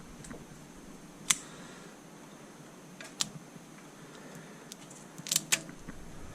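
A few sharp clicks from small parts being handled during assembly: one about a second in, another about three seconds in, and a quick cluster near the end.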